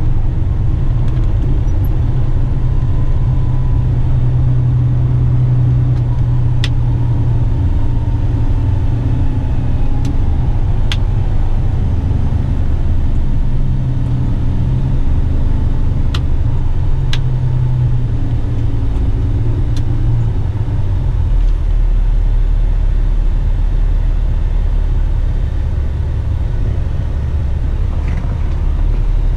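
Western Star truck's diesel engine droning steadily as it drives, heard inside the cab, with a few brief sharp clicks. The engine note drops to a deeper rumble about two-thirds of the way through.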